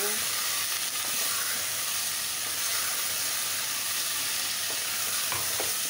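Mutton pieces sizzling in hot oil in an open aluminium pressure cooker, stirred with a wooden spatula: a steady frying hiss as the meat's own juices cook off, with a couple of faint knocks about five seconds in.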